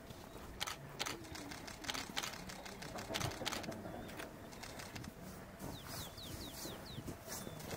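Faint outdoor ambience at a red-crowned crane roost on a snowy river: scattered sharp clicks throughout, and about six seconds in a quick series of five or six short, high chirps.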